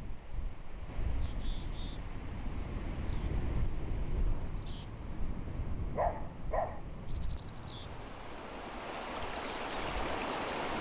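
Wild birds chirping, with short high calls scattered through and two lower notes about six seconds in, over a steady rushing outdoor background that grows louder toward the end.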